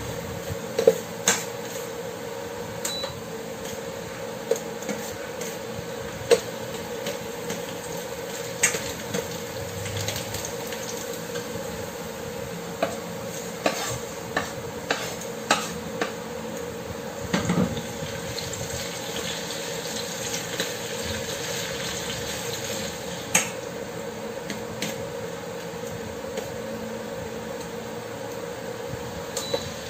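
Diced onion and tomato sizzling in oil in a stainless steel pan, with a metal slotted spatula clinking and scraping against the pan in sharp, irregular taps as the tomatoes are pushed in and stirred. A steady hum runs underneath.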